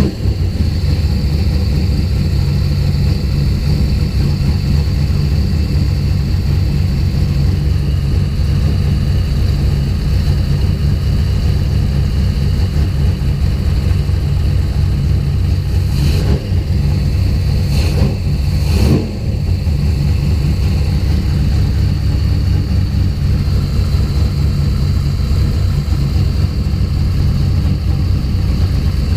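Car engine running at a rough idle, steady and loud, with a few sharp pops and a brief stumble about two-thirds of the way through.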